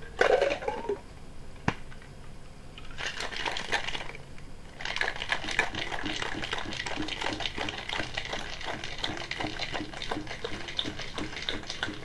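Cocktail shaker being shaken hard, its contents rattling in a fast, steady run of strikes that starts about three seconds in and settles into a steady rhythm from about five seconds. A knock and a sharp click come first as the shaker is handled.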